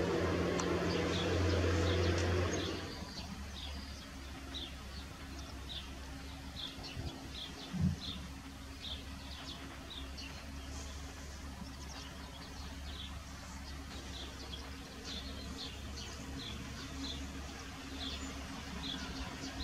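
A bird repeating a short high call every half second or so over a steady low hum. A loud low noise fills the first couple of seconds and then stops, and a single thump comes about eight seconds in.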